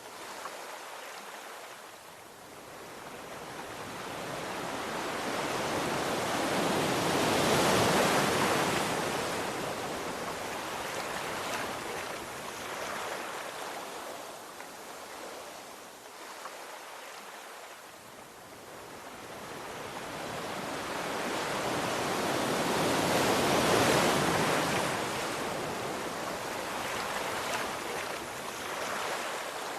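Sea waves breaking and washing on a shore. Two slow swells rise and fall, peaking about eight seconds in and again about sixteen seconds later, with a softer wash between them.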